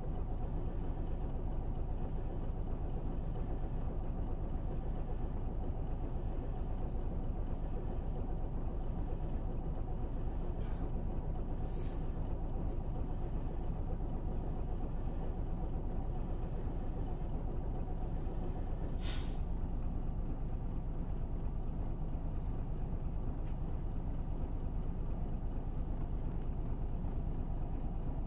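Hankyu city bus's engine and running noise, steady and low. Two short hisses of air break through about twelve and nineteen seconds in.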